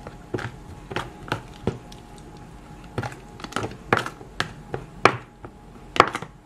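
Metal spoon stirring sliced onions in an oil-and-vinegar marinade in a plastic tub, clicking and scraping against the tub in a dozen or so irregular knocks; the loudest comes near the end.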